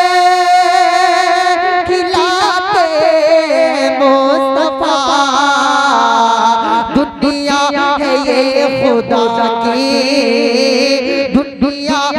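A man singing an Urdu naat into a microphone, drawing the line out in long held notes and quick ornamented runs.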